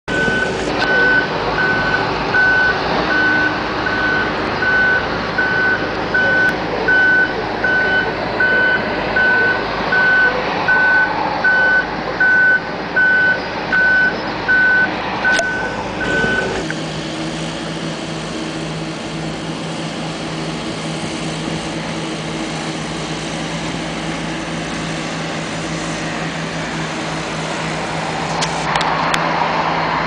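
Heavy road-construction machinery running, a road milling machine's diesel engine with a reversing alarm beeping steadily over it; the beeping stops a little over halfway through and a steadier diesel engine drone carries on.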